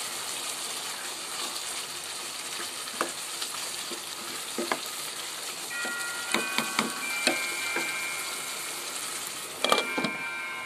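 Beef liver curry sizzling in a steel saucepan while a spoon stirs and knocks against the pan, the metal ringing briefly after some strikes. Near the end a glass lid is set on the pan with a sharp clink that keeps ringing.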